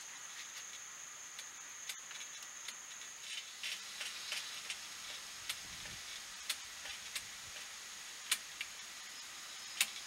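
Hydraulic disc brake lever being squeezed and released by hand, giving a series of sharp, irregular clicks over a faint steady high hiss.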